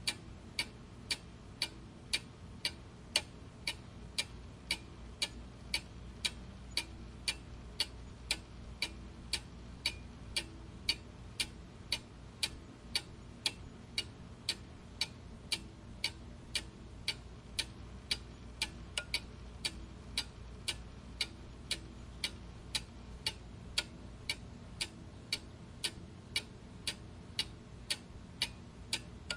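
Clock ticking steadily, about two ticks a second, in an even tick-tock rhythm.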